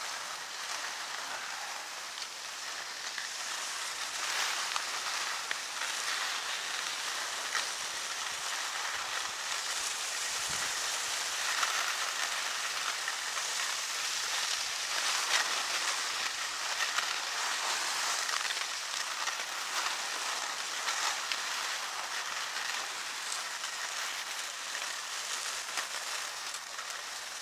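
Skis sliding over hard-packed groomed snow: a steady scraping hiss that swells and fades a little as the skis turn.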